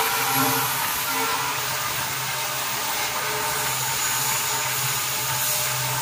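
Steady hum of a WDP4D diesel locomotive hauling the train, heard from an open coach door, under a constant rush of wheel and wind noise from the moving train.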